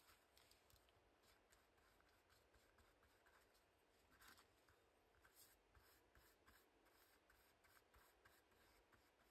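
Near silence, with faint scratchy strokes of a paintbrush spreading matte medium over paper, about two to three a second. A slightly stronger rub about four seconds in, as the paper is pressed down by hand.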